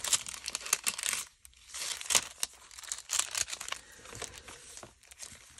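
Paper being handled: irregular rustling and crinkling in short scratchy bursts, with a brief pause about a second and a half in.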